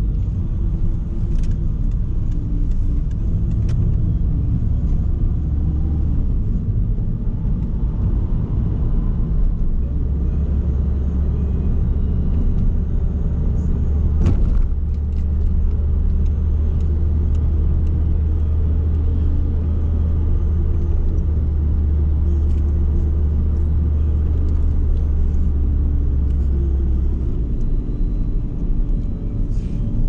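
A car driving on an open road, heard from inside the cabin: a steady low engine and road rumble, with one brief click about halfway through.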